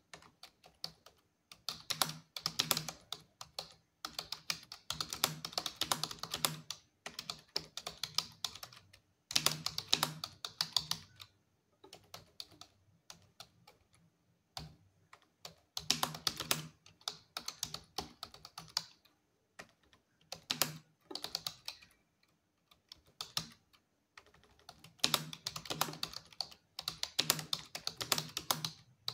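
Rapid typing on a computer keyboard during a timed typing test: runs of fast keystrokes broken by short pauses.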